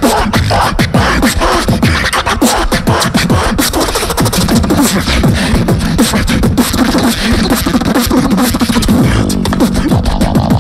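Live beatboxing through a handheld microphone and PA: a fast, unbroken beat of mouth-made kick, snare and hi-hat hits over a bending vocal bass line.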